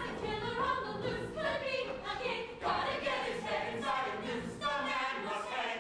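A mixed ensemble of male and female stage singers singing together in chorus, a live musical-theatre number.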